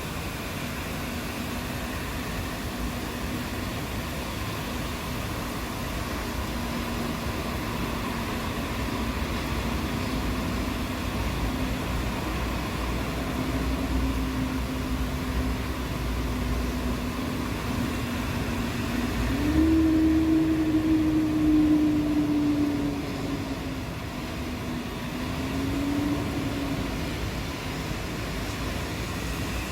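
Steady rain hiss with a low motor hum under it, which rises in pitch and grows louder about two-thirds of the way through, then sinks and fades.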